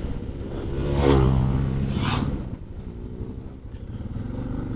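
Off-road motorcycle engines at low speed: an oncoming trail bike passes close by about a second in, loudest then and fading after, and the engine sound drops off about two and a half seconds in before picking up again near the end.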